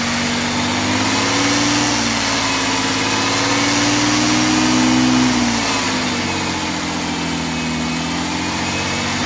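Ford F-250 engine running at raised revs to drive its smog pump as an air pump, blowing air through a hose, with a steady hiss over the engine note. The engine pitch rises slightly about a second and a half in and drops back around five and a half seconds in.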